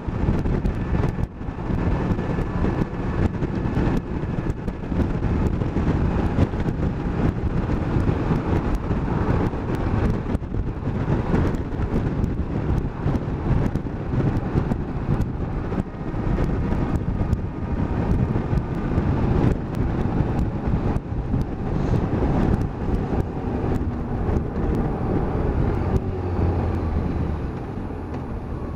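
Kawasaki Versys 1000LT's inline-four engine running under way, with heavy wind buffeting on the camera microphone. Near the end the engine settles to a steadier, quieter note.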